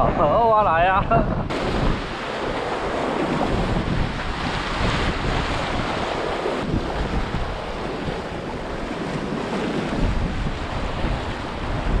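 Sea surf washing and breaking over the concrete tetrapods of a breakwater, with wind buffeting the microphone. A brief voice is heard at the very start.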